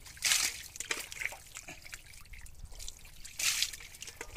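Hands splashing and working through shallow muddy water, with trickling and dripping. There are two louder splashes, one just after the start and one about three and a half seconds in.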